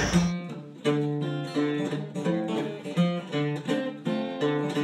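Background music of an acoustic guitar picking notes in a steady rhythm.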